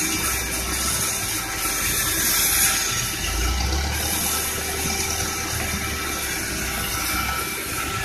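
Large sawmill bandsaw running steadily while splitting medang timber: a constant hum under an even hiss, with a low rumble that swells in the middle and fades near the end.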